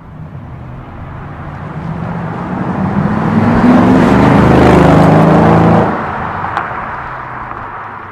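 Mercedes-Benz E63 AMG V8 with a MEC Design 'Earthquake' sports exhaust driving past under load: the exhaust note builds over a few seconds, is loudest around the middle, drops sharply about six seconds in and fades away.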